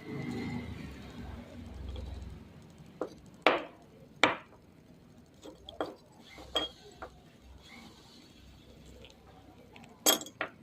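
Small hard parts clinking and knocking as they are handled: a few sharp clicks spread through, the loudest two about three and a half and four seconds in, and another near the end.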